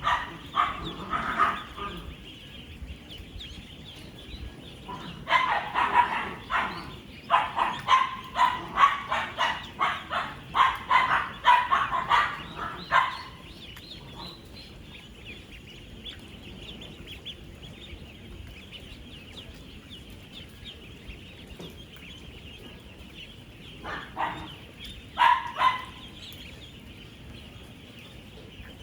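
A large flock of ten-day-old ducklings peeping in a steady, dense chorus. Over it, loud runs of short repeated calls come at the start, for several seconds in the middle, and briefly near the end.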